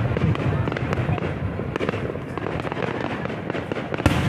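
Aerial fireworks shells bursting in rapid succession: deep booms overlapping with dense crackling, and a sharper, louder bang near the end.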